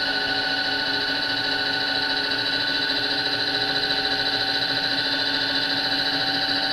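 Electric motor on an RF-31 mill/drill running at a constant speed, a steady hum with a whine over it, while the table travels along its X axis.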